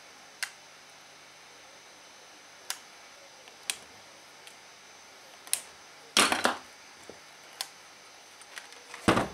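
Scattered sharp clicks of tools and parts being handled on an opened circuit board, with a louder clatter of several knocks about six seconds in and another loud knock near the end.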